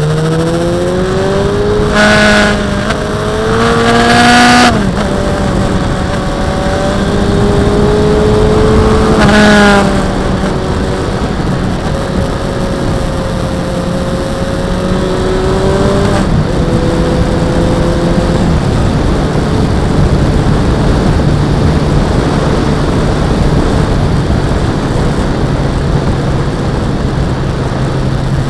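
Suzuki Bandit motorcycle's inline-four engine under way, accelerating through the gears: the pitch climbs and drops at each shift, with loud pulls about two to five seconds in and again near ten seconds. After that it runs steadily with smaller changes in pitch, over steady wind noise.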